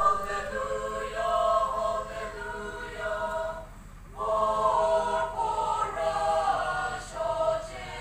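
A choir singing in long held notes, with a short break about four seconds in.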